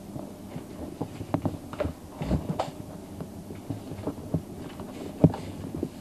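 Scattered, irregular faint clicks and light knocks, with one sharper click about five seconds in; no doorbell chime sounds.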